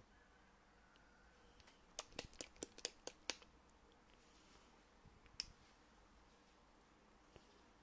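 Sharp little plastic clicks from a squeeze bottle of acrylic paint being handled: a quick run of about six clicks, then a single click a couple of seconds later.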